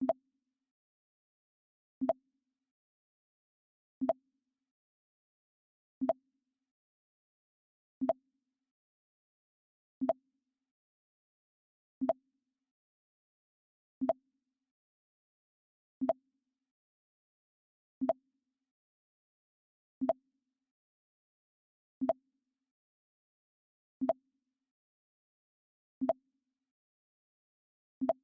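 The Mac OS X "Pong" sound effect repeating: a short, low pop with a brief tone after it, about every two seconds, with silence between.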